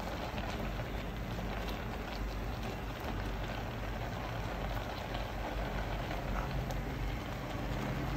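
Pot of beans in blended tomato and pepper sauce bubbling steadily on the stove, with a silicone spatula stirring through it.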